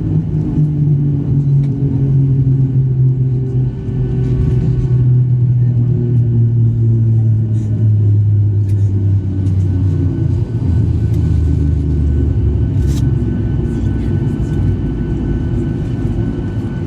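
Loud low rumble inside the cabin of a Boeing 737-800 rolling down the runway after touchdown, its engine drone sinking steadily in pitch as the jet slows. A few brief rattles about two-thirds of the way through.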